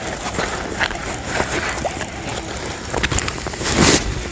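Wind buffeting the microphone, with a loud swish about four seconds in as a fishing rod is swung into a cast.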